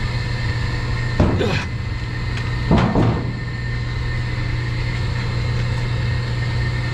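Steady, loud low hum of running boiler-room machinery, with two brief handling noises about one and three seconds in as a heavy circulating-pump motor is moved into place.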